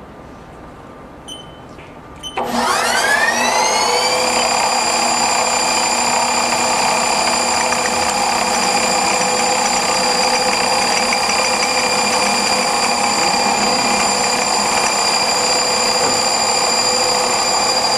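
A Haas TL-1 CNC toolroom lathe's spindle starts about two seconds in, after two short beeps. Its whine rises in pitch, settles within about a second and a half, and then runs steadily at speed, ready to cut a thread relief.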